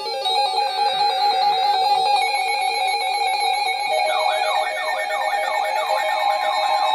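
Several electronic alarm tones sounding at once: a steady tone a little under 1 kHz over rapidly repeating beeps. Warbling, sweeping tones join about four seconds in.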